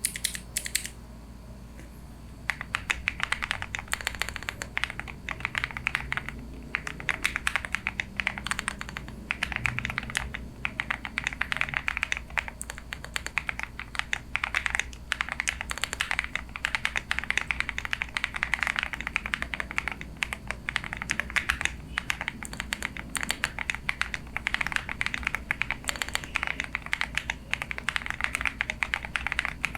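Typing on a modded, gasket-mounted acrylic Akko ACR67 mechanical keyboard with Akko Ocean Blue tactile switches: rapid runs of keystrokes with short pauses, starting about two seconds in. A faint steady low hum lies underneath.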